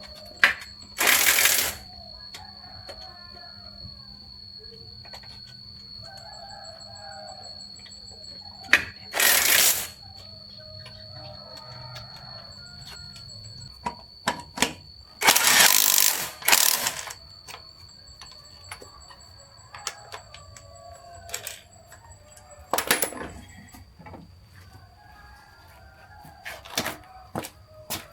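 Four short bursts of loud hissing, each a second or two long, among scattered clicks and taps. A rooster crows in the background.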